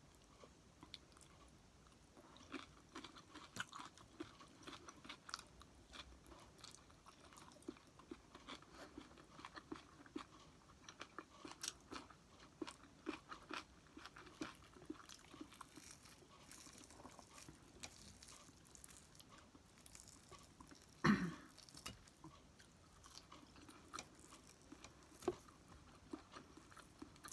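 Close-miked chewing, with irregular small crunches and wet mouth clicks as food is bitten and chewed. One brief, louder mouth sound stands out about three-quarters of the way through.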